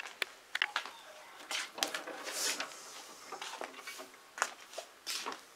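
Irregular soft footfalls on a laminate floor mixed with rustling and handling noise from a handheld camera, with a few sharp clicks in the first second.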